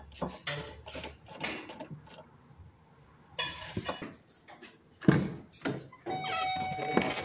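A ratchet clicking on the negative battery terminal, then footsteps and the Chevy Express van's door opening with a sharp knock about five seconds in. About a second later a steady electronic warning tone from the van starts and holds.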